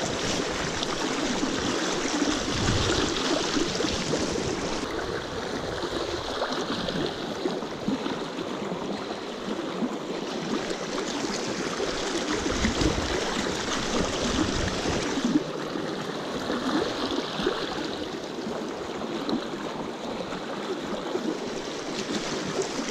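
Quick, shallow stream running over rocks: a steady rush of flowing water, with a few brief low rumbles.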